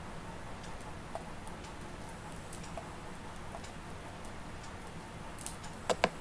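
Screwdriver tightening small screws into the plastic base of an aquarium air pump: scattered faint ticks and clicks, with two sharper clicks near the end.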